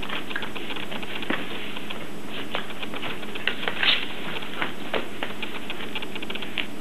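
English bulldog puppy gnawing on something hard, her teeth making irregular clicks and scrapes.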